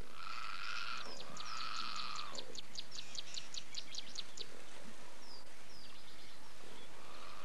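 Wild birds calling: a rapid run of sharp high notes, about six a second, through the first half, with two short falling whistles a little past the middle.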